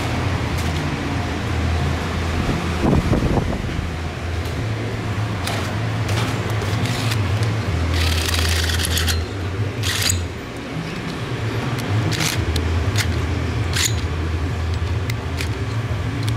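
A steady low hum that drops out briefly a few times, with scattered sharp clicks and knocks of metal parts being handled on a bench vise.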